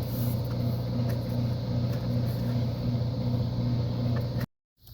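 Small electric air pump or compressor running with a steady hum, inflating a freshly patched bicycle inner tube to test whether the patch holds. It cuts off abruptly near the end.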